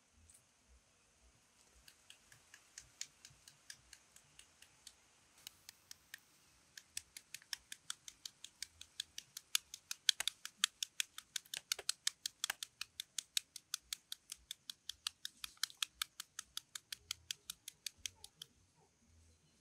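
Kitchen knife rapidly scoring a red onion held in the hand: a crisp, regular tapping of about four cuts a second. It starts faint, grows louder around the middle and stops shortly before the end.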